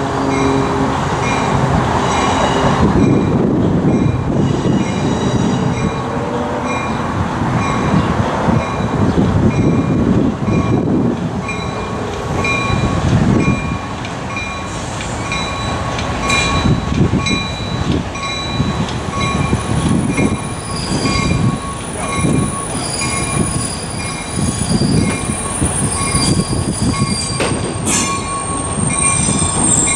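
Train rolling along the track, its wheels squealing in steady high-pitched tones over a continuous rumble of the cars.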